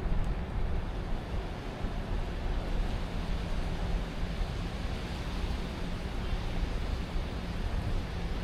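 Steady city ambience: a continuous wash of distant traffic rumble with a low hum underneath, no single event standing out.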